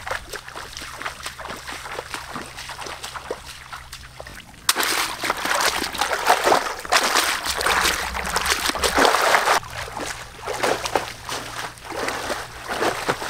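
Splashing through shallow muddy water, then, starting suddenly about five seconds in, louder splashing and sloshing as a woven bamboo basket is dipped and swished through shallow pond water.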